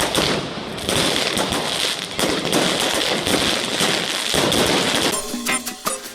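Dense, rapid crackling and popping for about five seconds, like a long string of firecrackers going off. Near the end, Latin dance music starts.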